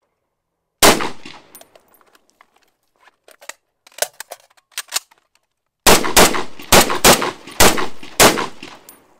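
FN FAL-pattern semi-automatic rifle firing: one shot, a couple of seconds of metallic clicking and clacking as the rifle is handled, then about six shots in quick succession.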